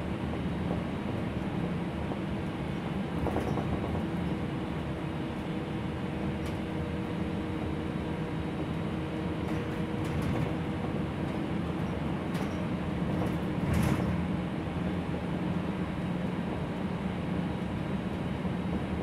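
Gillig low-floor city bus under way, heard from inside the cabin: a steady drone of engine and road noise, with a faint whine held for several seconds in the middle and scattered rattles and knocks from the body, the loudest about fourteen seconds in.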